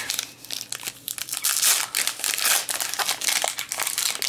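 Foil wrapper of a Magic: The Gathering booster pack being crinkled and torn open by hand, quieter at first and louder from about a second and a half in.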